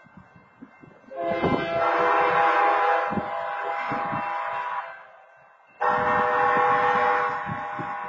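Horn at a railroad grade crossing sounding two long multi-tone chord blasts, the first about three and a half seconds long, the second starting about a second after it ends. These are the opening longs of the long-long-short-long grade-crossing signal.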